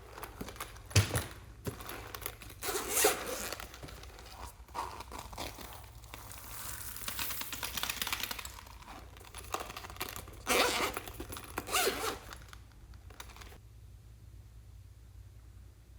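Slime being squished and stretched by hand: irregular sticky crackles and tearing sounds, falling quieter near the end.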